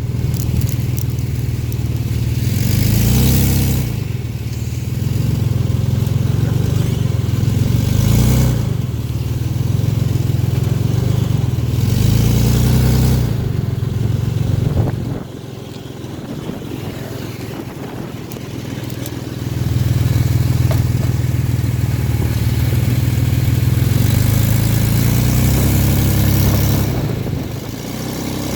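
Car engine running on the road, its pitch climbing several times as it accelerates, with a quieter stretch about halfway through. The owner is recording a crankcase knock that comes with a felt push while driving.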